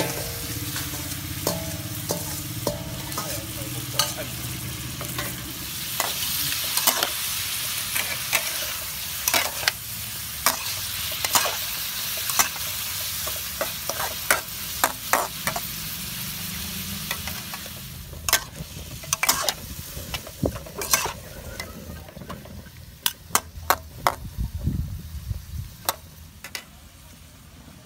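Snails stir-frying with lemongrass and chilies in a steel wok: hot oil sizzling while a metal spatula scrapes and clinks against the wok. The sizzle swells about six seconds in and dies down over the last ten seconds, leaving mostly sharp spatula clinks.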